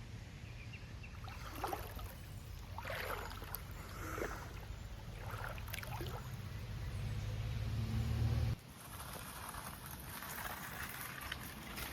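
Water sloshing and gurgling in several short splashes over a steady low rumble of river and wind. The low rumble drops out abruptly about two-thirds of the way through, leaving a lighter hiss.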